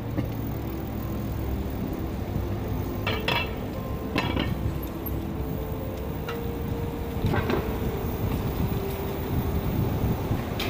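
Riding a bicycle: a steady rumble of tyres and air, with several sharp metallic clinks and rattles, about four of them spread over the ride.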